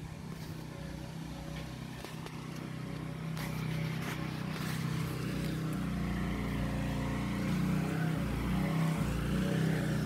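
A steady low mechanical hum, growing gradually louder.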